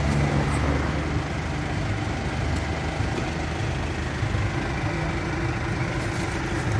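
An engine idling with a steady, low rumble.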